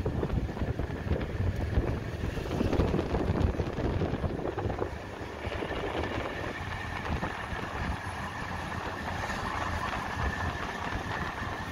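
Steady low rumble of a motor vehicle running. It eases a little about five seconds in, and a faint steady whine comes in after that.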